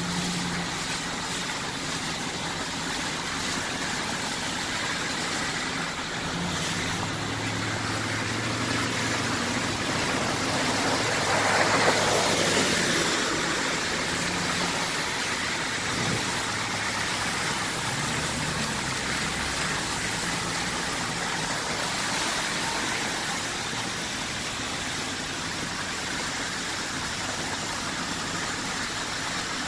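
A car engine running under a steady hiss, swelling briefly about twelve seconds in.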